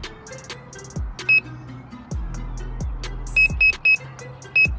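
Electronic background music: deep kick-drum hits that drop in pitch, bursts of high hiss, and short high beeping notes in a quick rhythm.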